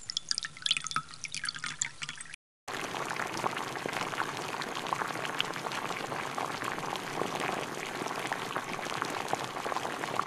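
Cooking oil pouring and dripping into a pot for about two seconds. Then, after a brief cut, a steady crackling sizzle of potatoes deep-frying in hot oil.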